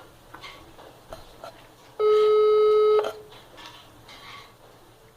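Telephone ringback tone: one steady beep lasting about a second, starting about two seconds in. It means the call is ringing at the other end and has not been answered.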